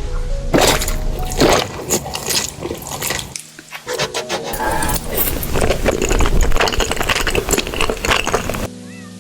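Close-up eating sounds: wet chewing and mouth noises with many short clicks, stopping abruptly near the end.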